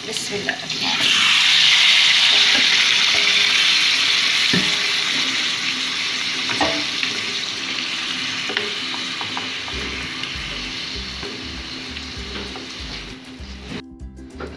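Raw chicken pieces dropped into hot oil and garlic paste, sizzling loudly as they hit the oil. The hiss surges about a second in, then slowly dies down while a wooden spatula stirs the meat, and cuts off just before the end.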